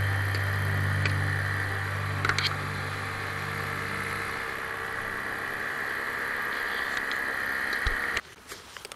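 Paramotor's engine running at a low idle after touchdown, a steady low drone that dies away about four seconds in.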